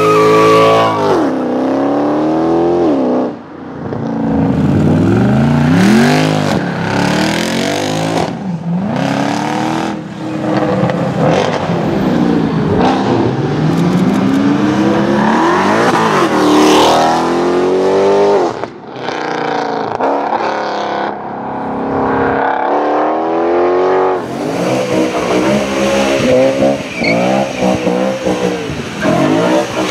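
Mercedes-Benz C63 AMG's naturally aspirated 6.2-litre V8 revving hard and accelerating away in several passes, its pitch climbing and dropping back with each burst and gear change. In the last few seconds a BMW M3 V8 revs high and holds revs while drifting on wet tarmac.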